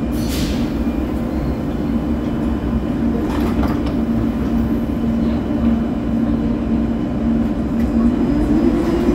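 Cologne KVB Stadtbahn light-rail car standing at an underground platform, its equipment humming steadily over a low rumble. The doors close about three and a half seconds in with a short burst of noise. Near the end a whine begins rising in pitch as the car starts to pull away.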